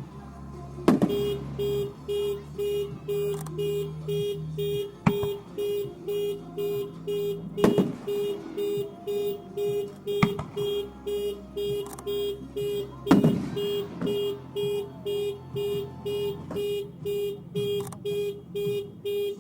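Firework shells bursting now and then, several sharp bangs, over a steady electronic beeping of about two beeps a second that starts about a second in and runs on like a car alarm.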